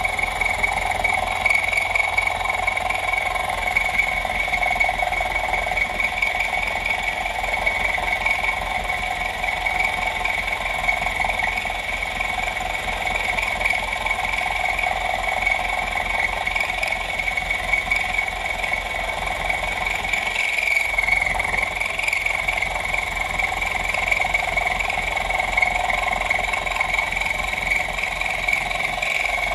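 Small home-built manual mill's 500 W motor running at low speed while an end mill cuts Uddeholm Sleipner tool steel: a steady whine over the continuous rasp of the cut.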